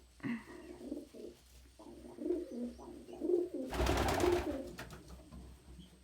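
Domestic pigeons cooing: low, repeated coos through the middle of the clip, with a brief loud rush of noise a little under four seconds in.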